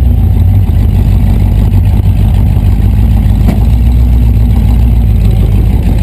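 Rat rod pickup's engine and exhaust running loud and low at a slow roll, heard inside the cab, with a fast, even pulsing.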